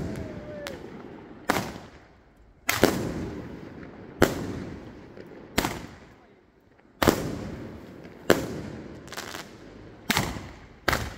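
Fireworks going off in a regular string of about nine sharp bangs, roughly one every second or so, each trailing off in an echo.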